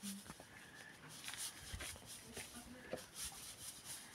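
Faint, irregular scraping and rustling of cracked wheat being worked by hand at a stone hand mill, with a faint voice in the background.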